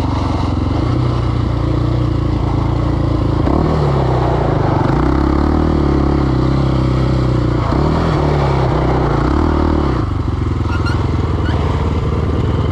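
KTM 525 XC quad's single-cylinder four-stroke engine running while riding, its revs rising and falling, then dropping to a steady idle about ten seconds in as the quad comes to a stop.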